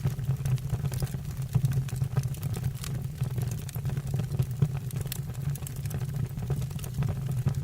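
Wood fire burning in a fireplace: a steady low rumble of flame with scattered sharp crackles and pops from the burning logs.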